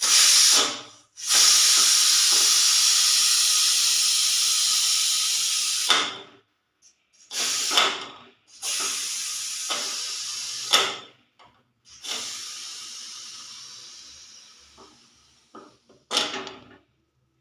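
A pressure cooker whistle sound made by hand: a series of six loud steam-like hisses. Three are long, lasting several seconds, and the last long one slowly fades; three short puffs fall between them. Each hiss stops abruptly.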